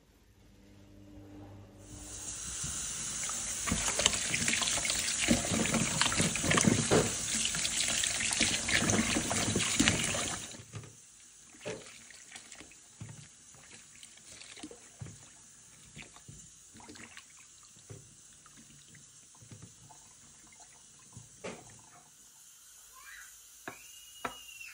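Kitchen tap running into a plastic bowl in a stainless steel sink for about eight seconds, then shut off suddenly. After that, hands swish and splash radishes and spring onions in the water, with scattered knocks and drips.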